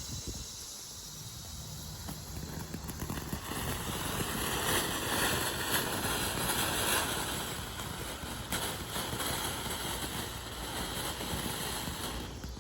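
A small "Red Hot" consumer ground firework burning with a steady spraying hiss. The hiss builds a couple of seconds in, is loudest in the middle, carries a few faint cracks, and stops near the end.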